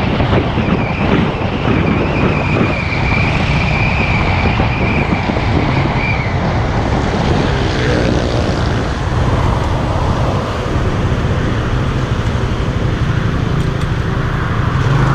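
Motorcycle engine running at low speed while riding between lanes of stopped cars, with wind noise on the microphone and surrounding traffic. A high steady whine is heard through the first half.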